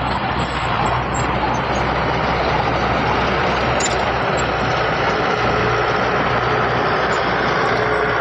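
Heavy diesel earthmoving machinery running steadily under load, a continuous deep engine sound with a faint steady whine above it.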